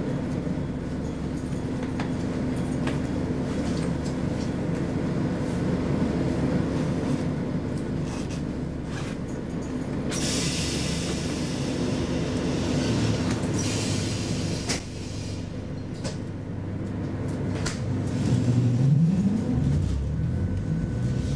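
Interior of a standing ABB-built SL X10p electric railcar: a steady hum of onboard equipment with occasional clicks, and a hiss lasting about three seconds near the middle. Near the end a rising whine begins as the train starts to pull away.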